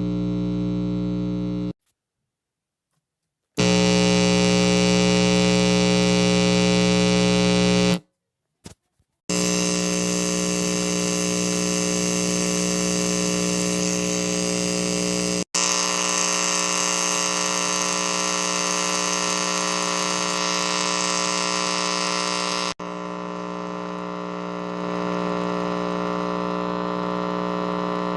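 Electrical buzz and hum from a bent auxiliary audio cable making a bad connection, cutting out abruptly to silence twice and coming back with a slightly different tone, with a few small clicks in the second gap.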